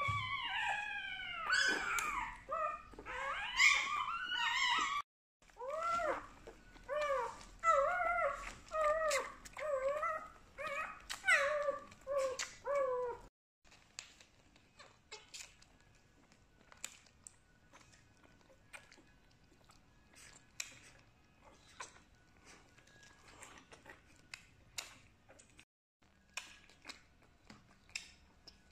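Newborn puppy crying: a run of high, rising-and-falling squeals, about one or two a second, broken once about five seconds in and stopping about halfway through. After that only faint scattered clicks.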